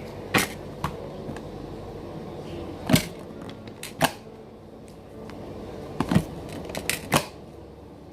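Irregular sharp clicks and knocks of small hard objects being handled, about eight over several seconds, the loudest two near the middle, over a steady room hum.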